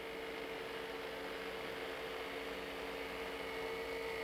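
Electric fan running with its blades spinning: a steady hum with a faint high whine above it.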